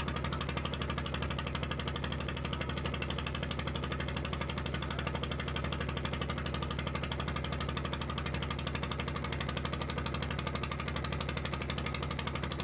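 Fishing boat's inboard engine running steadily with a fast, even knocking pulse.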